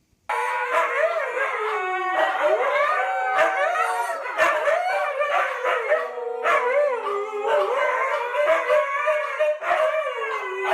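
Dogs howling together: several long, wavering howls overlapping one another, starting abruptly.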